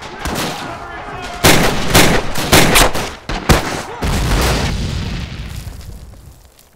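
Battle gunfire sound effects: a run of loud, irregular shots, followed about four seconds in by a deep explosion-like rumble that fades out.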